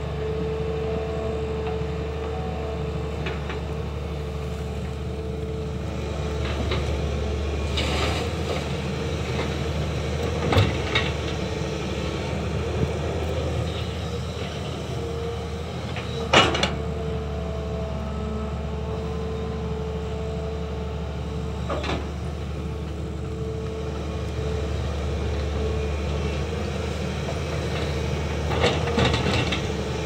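Hyundai crawler excavator's diesel engine running steadily as it digs soil, with a steady whine over the engine rumble. A few sharp knocks and scrapes of the bucket in the dirt come through at intervals.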